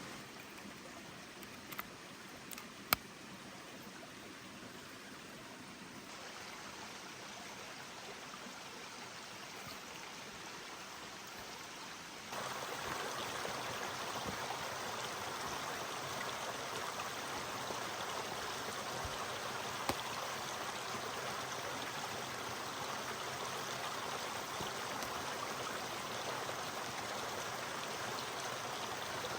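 Steady rushing of flowing water, like a stream, which gets louder about twelve seconds in and then holds steady. A couple of sharp clicks sound in the first few seconds.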